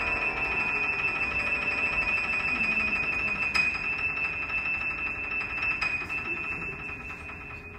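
Flute and piano music: a single high note held steadily over softly ringing grand piano notes, slowly fading near the end.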